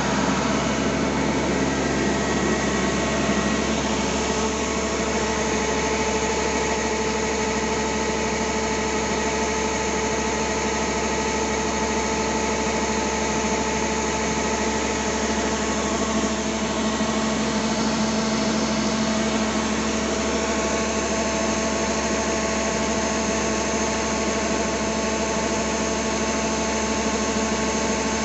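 Yanmar combine harvester's diesel engine and machinery running steadily, a constant engine noise with several steady whining tones over it.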